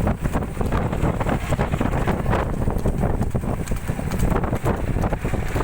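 Wind rumbling on the microphone, with the irregular clatter of a ridden horse's hooves.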